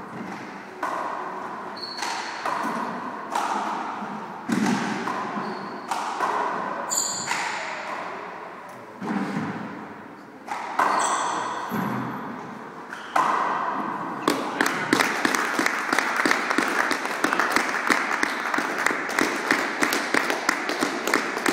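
A 40x20 handball rally: the ball smacking off hands, walls and floor about once a second, each hit ringing in the enclosed court. About 13 seconds in the hits stop and steady applause takes over as the match ends.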